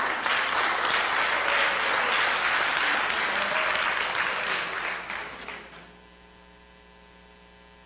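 Congregation applauding, fading out about five and a half seconds in, leaving a faint steady mains hum.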